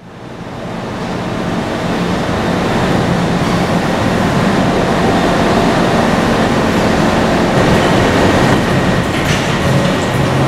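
Vintage New York City subway cars (SMEE type) in an underground station: a steady rumble and hum of the train's motors and equipment, with some clacking of wheels. It fades in over the first two seconds.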